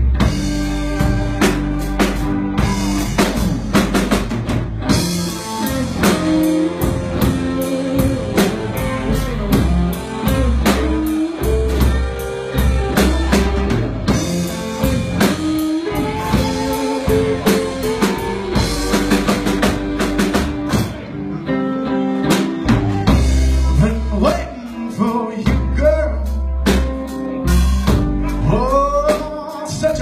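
Live blues-rock band playing: electric guitars and bass over a drum kit keeping a steady beat. Near the end, notes bend upward in pitch.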